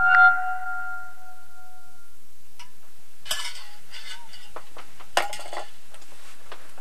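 A held electronic music tone fades out over the first two seconds. Then come a few short clattering and rustling handling sounds, the clearest about three and five seconds in.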